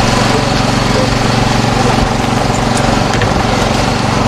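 Small petrol engine running steadily at a constant speed, the power unit driving hydraulic rescue tools.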